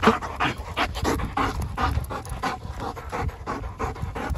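German Shepherd panting hard and quickly, about three breaths a second, close to the microphone.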